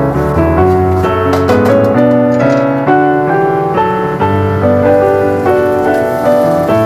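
Background piano music, a melody of separate notes one after another.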